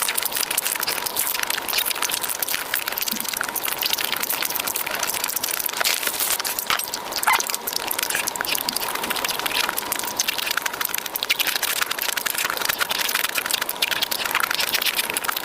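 Close-up eating sounds: food being chewed and crunched, making a dense, continuous crackle of small clicks. A faint steady whine runs underneath.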